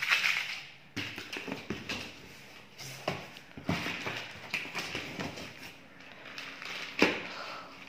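Hands opening a taped cardboard carton and handling the boxed products inside: scattered rustles, taps and knocks of cardboard, with a sharper knock about seven seconds in.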